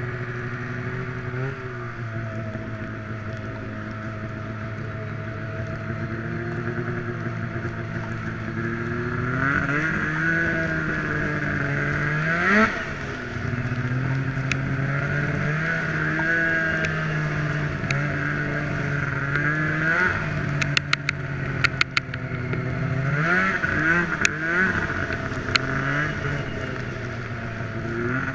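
Snowmobile engine running under changing throttle, its pitch rising and falling again and again, with a sharp climb about twelve seconds in. A cluster of short sharp clicks comes about two-thirds of the way through.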